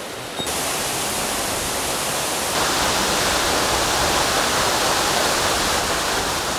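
Loud, steady rush of a mountain stream's fast-flowing water, as an even hiss. It jumps louder about half a second in and again about two and a half seconds in.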